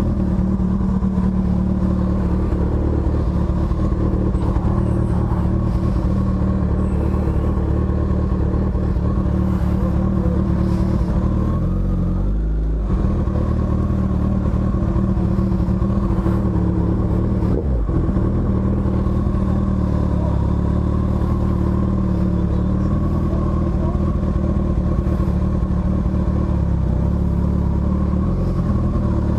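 Sport motorcycle engine running at low, steady revs, a constant drone with a brief dip and shift in pitch about twelve seconds in.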